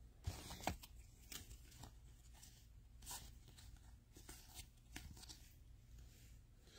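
Faint, scattered rustles and soft clicks of football trading cards being handled and leafed through by hand, card sliding against card.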